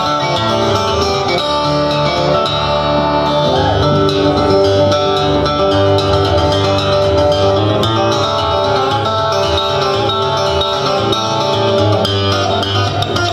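Solo harp guitar played fingerstyle: low bass notes ringing under a plucked melody.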